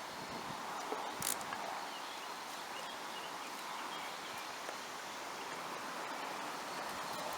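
Outdoor ambience: a steady rustling noise of wind and foliage, with one sharp click a little over a second in and a few faint high chirps.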